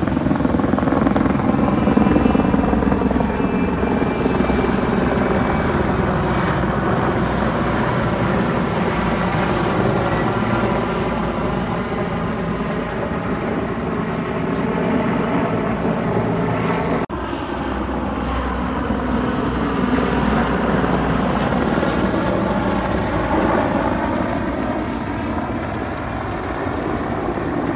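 Firefighting helicopter flying low overhead: a steady rotor and turbine drone that slowly rises and falls in pitch as it passes, with a brief break about two-thirds of the way through.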